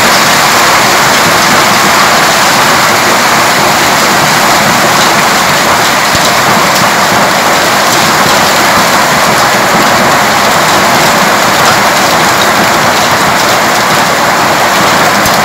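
Heavy hailstorm: hailstones and rain pelting down hard, a loud, steady, dense clatter of countless small impacts.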